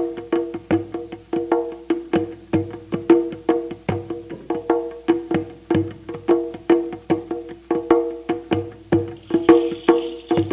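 Live percussive music: quick struck notes, about four a second, on a few pitches, over a steady low drum beat. A brief hiss joins near the end.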